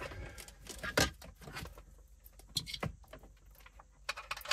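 Scattered plastic clicks and knocks with light rustling as a touchscreen car radio and its wiring loom are handled in front of the dashboard. The loudest knock comes about a second in.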